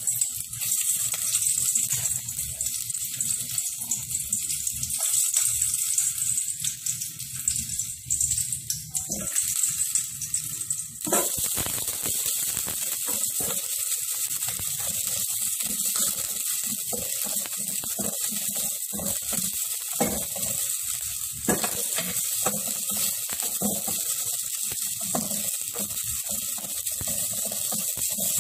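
Onion, garlic and ginger sizzling in hot olive oil in a stainless steel pot, stirred with a wooden spatula that scrapes and knocks against the pot. The sizzle turns fuller and steadier about eleven seconds in.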